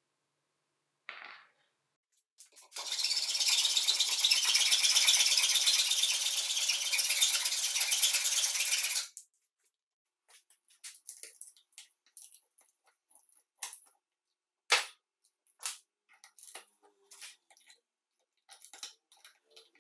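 A loud, even scratching hiss for about six seconds that stops abruptly. Then scattered sharp clicks and short scrapes as side cutters work at the copper field windings of a circular saw motor's stator.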